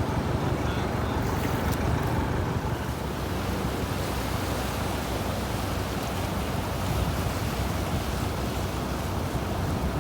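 Steady rush of sea surf with wind.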